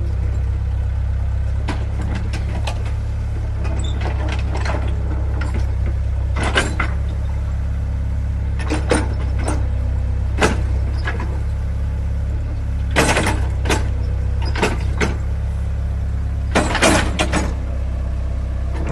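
Excavator diesel engine idling with a steady low drone, with a dozen or so short sharp knocks and clanks at irregular intervals, several in quick succession about two-thirds of the way through and near the end.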